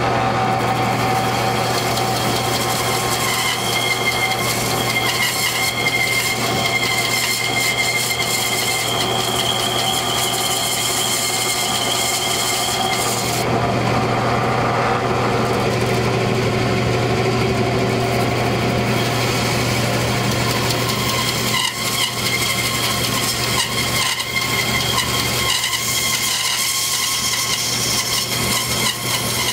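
Bandsaw running steadily with a constant motor hum, its blade cutting a kerf through a small wooden block. The high cutting hiss drops away for a few seconds about halfway while the block is repositioned, then the blade cuts again.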